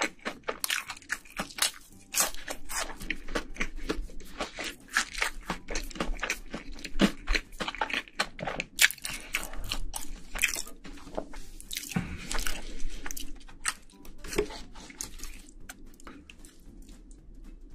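Close-miked mukbang eating: a person biting and chewing crunchy food, with dense wet crunching and smacking that thins out near the end.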